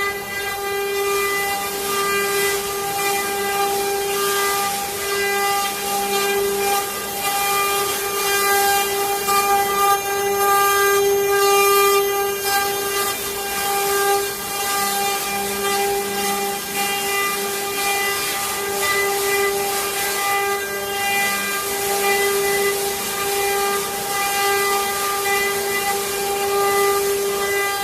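CNC router spindle running at a steady high speed while cutting, giving a constant whine over a rough, scratchy cutting hiss that flickers irregularly.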